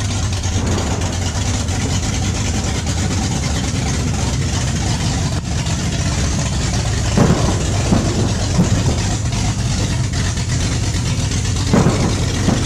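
Engine of a hoodless classic pickup truck idling steadily, with a couple of short louder blips about seven and twelve seconds in.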